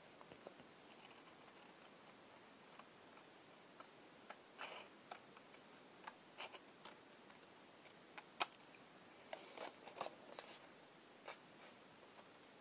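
Small scissors snipping through card stock: faint, short sharp cuts in irregular clusters as a curved shape is cut out, busiest from about two-thirds of the way through.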